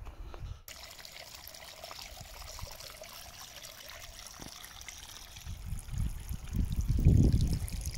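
A small trickle of water running over wet, rocky ground, a steady splashing hiss. A low rumble builds near the end and is the loudest sound.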